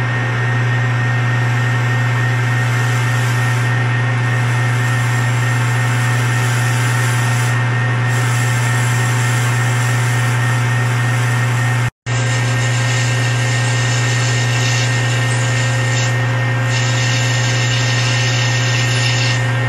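Metal lathe running steadily while turning a C630 bronze bar: a constant motor hum with the tool's cutting noise over it. The sound cuts out for an instant about twelve seconds in, then carries on the same.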